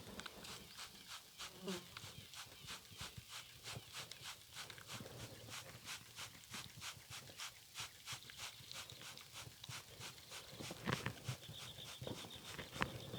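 Spray bottle being squirted over and over in quick succession, about three to four hissing squirts a second, stopping about eleven seconds in.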